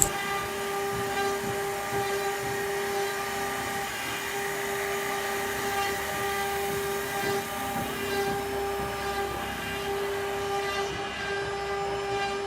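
CNC woodworking lathe running, a steady whine at one constant pitch over a rough hiss as it turns wood.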